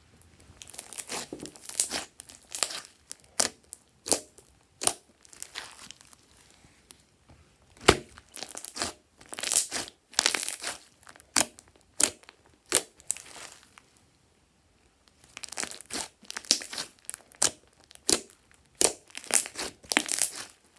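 Hands squeezing, pressing and kneading thick glossy slime with glitter and beads mixed in: sticky squishing broken by sharp crackling pops in irregular runs, with a pause of about a second about two-thirds of the way through.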